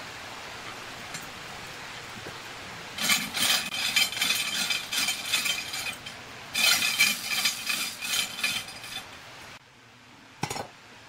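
Steel chain hanging from a tripod hoist rattling and clinking in two spells of a few seconds each as it is handled, then a single knock near the end.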